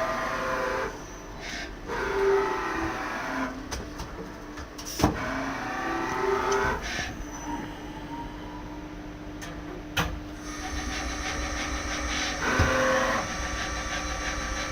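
Mori Seiki SL-15M CNC lathe running: motor whines rising and falling in pitch in short stretches, with sharp knocks about 5, 10 and 13 seconds in and a steady hum from about halfway.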